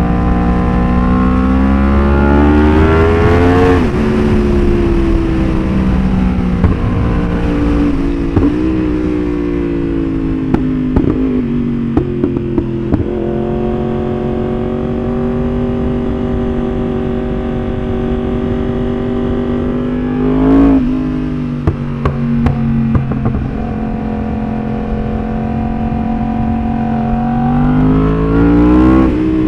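Yamaha R1 inline-four sport-bike engine under way: it accelerates up through the revs, settles to a steady cruise, blips sharply about twenty seconds in, then climbs again near the end. Short sharp cracks come off the exhaust in a few places when the throttle is closed, the pops of its pop-and-bang ECU tune.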